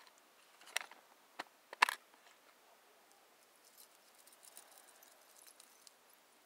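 A few light clicks of a metal spinner lure against a clear plastic tackle box as it is set back into its compartment, three in the first two seconds, followed by faint scattered ticks and rustling of handling.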